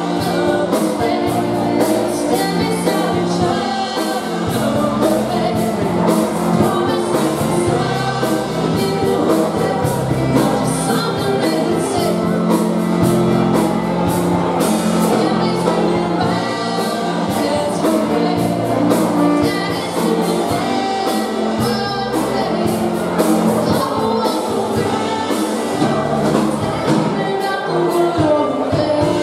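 Live polka band playing a dance tune with a steady beat: accordion, saxophone and drum kit, with singing over it.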